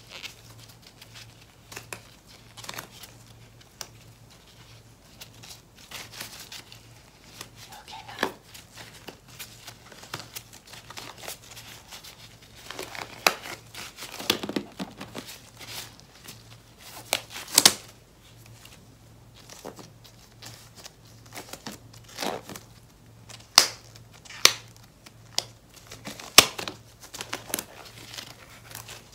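Thin white plastic gloves crinkling and crackling as gloved hands rub together and a glove is worked off, in irregular sharp crackles, some much louder than others.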